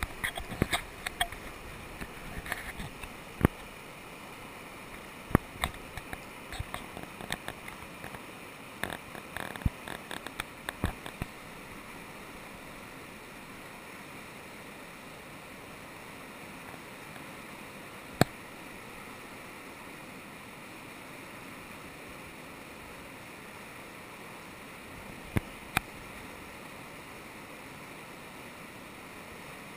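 Whitewater rapids of the Secesh River rushing steadily. A run of sharp clicks falls in the first ten seconds or so, with a few single clicks later.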